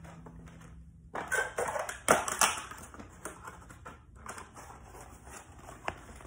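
Rummaging: rustling and knocking as things are moved about and a cardboard box is picked up, with a sharp knock about two seconds in.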